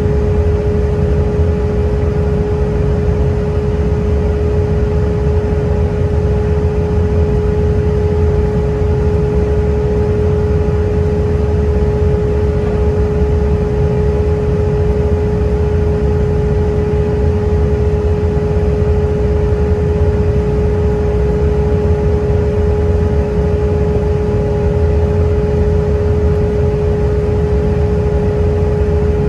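Cabin noise of an Airbus A320-212 climbing out, heard at a window seat over the wing: a steady low rumble and rush of air from the airframe and its CFM56 engines, with a clear unwavering hum running through it.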